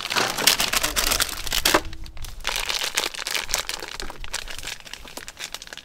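Plastic food packaging crinkling as bags of ingredients are handled and emptied, busiest and loudest in the first two seconds, then lighter and sparser.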